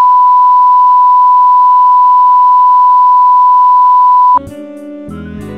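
Loud, steady, single-pitch broadcast test tone, the off-air tone of a TV channel that has gone down with a transmission fault. It cuts off suddenly about four and a half seconds in and music starts.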